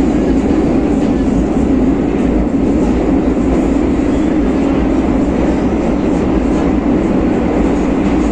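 Madrid Metro Line 6 train running through the tunnel at speed, heard from inside the carriage as a loud, steady low rumble of wheels on rail.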